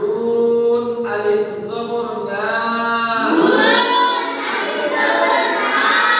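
A group of boys chanting an Arabic recitation lesson in unison, in long drawn-out melodic notes with a rising glide about halfway through.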